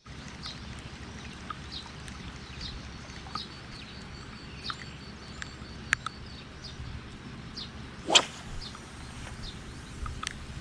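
Short bird chirps repeating every second or so over a low rumble of wind or surf, with one loud whip-like swish about eight seconds in.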